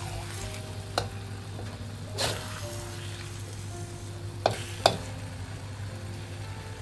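Eggs and minced pork sizzling in a wok while a metal spatula stirs and breaks them up, with a few sharp scrapes and clicks of the spatula on the wok, about one, two, and four and a half to five seconds in.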